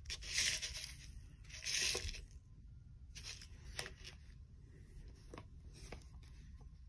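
Food packets and containers rustling and crinkling as they are handled, in two short swells near the start, followed by a few light clicks and taps.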